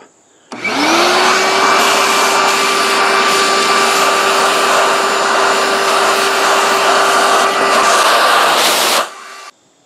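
Vacuum cleaner switched on, its motor whine rising quickly to a steady pitch, running while it sucks up metal drill shavings from the sheet-metal van roof, then cut off near the end.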